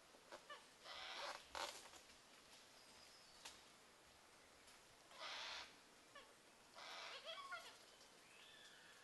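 Faint sounds of yellow-tailed black cockatoos foraging: a few sharp cracks of rotten wood being ripped open for grubs, and three short harsh rasping bursts, about a second in, just past five seconds and near seven seconds. The last burst carries faint squeaky calls.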